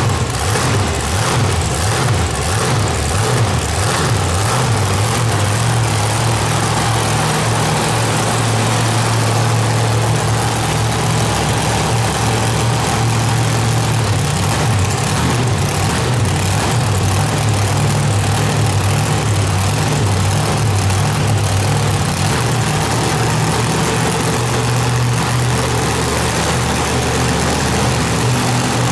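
Grave Digger monster truck's supercharged V8 engine running at a low, lumpy idle as the truck creeps along. It is uneven for the first few seconds, then settles to a steady note.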